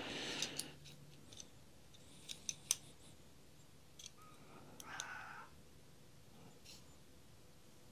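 Metal digital caliper being handled: the sliding jaw scrapes briefly along the beam at the start and again about five seconds in, with a scattering of small sharp metal clicks as the jaws close.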